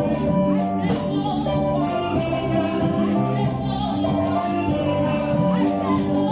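Upbeat choir praise music: voices singing over instruments, with hand percussion keeping a steady beat.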